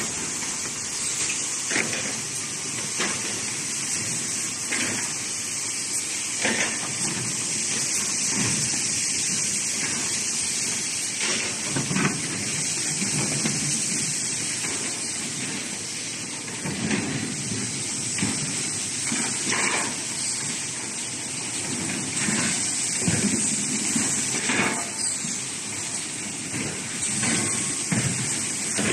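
Plywood sanding machine running: a steady loud hiss, with irregular knocks every second or few.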